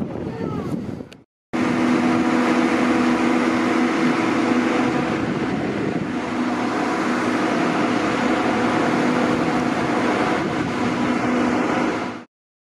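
S class diesel-electric locomotive S307's EMD V16 two-stroke engine idling: a steady drone with a constant hum in it, which cuts off suddenly near the end.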